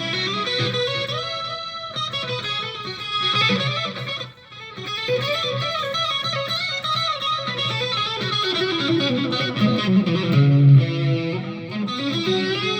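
Electric guitar played through a Donner Arena 2000 multi-effects unit with a stereo chorus effect: single-note melodic lines with a wavering shimmer, broken by a brief gap about four seconds in.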